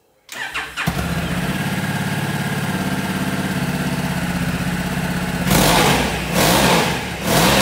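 Honda CRF1100 Africa Twin's 1,100 cc parallel-twin engine started on the electric starter, catching after a brief crank about a second in and idling steadily. Near the end the throttle is blipped three times in quick succession.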